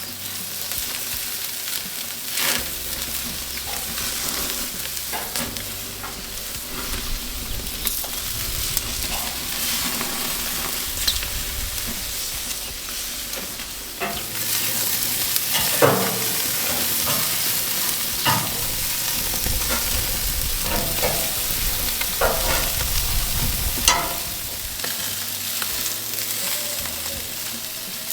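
Food frying and sizzling steadily in hot fat, the sizzle growing louder about halfway through. A metal utensil stirs, scrapes and knocks against the pan a few times.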